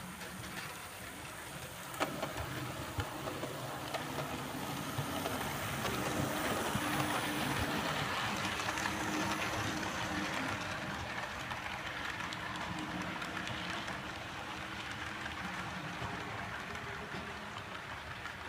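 Model freight train running on the layout's track: a steady rolling rattle with small clicks from the cars' wheels. It grows louder as the cars pass close, with a sharp click about two seconds in, then slowly eases off.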